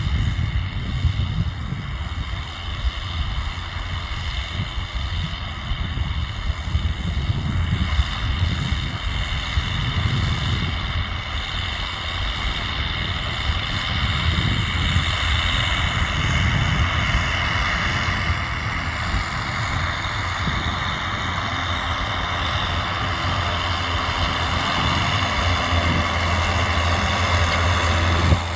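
John Deere 6930 tractor's six-cylinder diesel engine running steadily under load while pulling a Marsk Stig cultivator, with a steady high whine over the low engine drone. It grows slowly louder as the tractor comes closer.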